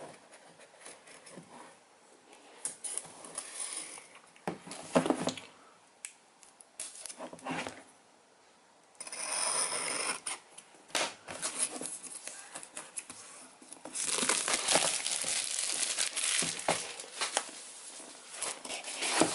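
Plastic shrink wrap on a cardboard kit box being slit with a hobby knife and torn off, crinkling and tearing in scattered bursts, then crinkling steadily through the last five seconds or so.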